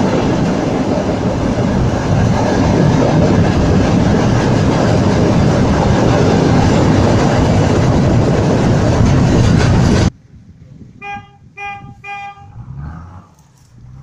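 Loud, steady rushing rumble of an off-road 4x4 pushing through water and mud, which cuts off suddenly after about ten seconds. Then a vehicle horn gives three short toots in quick succession, with a low engine hum under it near the end.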